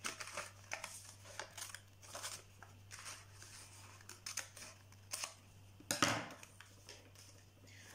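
Scissors cutting a sheet of paper: a run of short, irregular snips with paper rustling, one louder snip or rustle about six seconds in.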